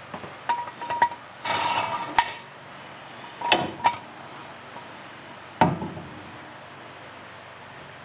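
Steel jack stands being set and adjusted under a car: a handful of separate metal clanks and clinks, with a short scraping rattle about a second and a half in.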